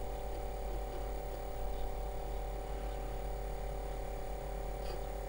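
Apple II floppy disk drive spinning and reading the DOS 3.3 System Master disk during boot, a steady buzzy whirr over a low hum, while Integer BASIC loads into the language card.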